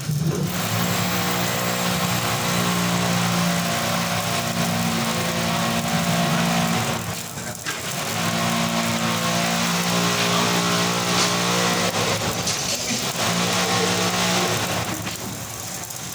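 Stick-welding arc crackling and hissing steadily over a low buzzing hum, breaking off briefly about seven seconds in and again near thirteen seconds.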